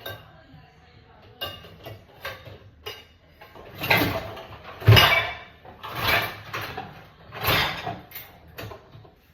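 Dishes being loaded into a dishwasher, with the racks sliding: a run of short scraping, rattling sounds about once a second, the loudest near the middle.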